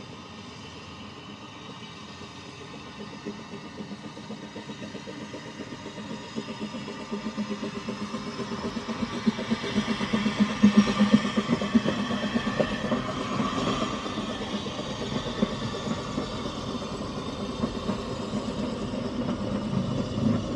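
Narrow-gauge steam locomotive hauling a train of vintage carriages past at close range. Its exhaust beats grow louder as it approaches and are loudest about ten seconds in as the engine goes by, followed by the carriages rolling past on the rails.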